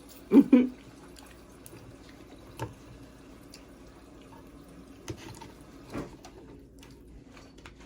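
Blue crab being picked apart and eaten by hand: a few faint cracks and clicks of shell, after a short, loud vocal sound about half a second in.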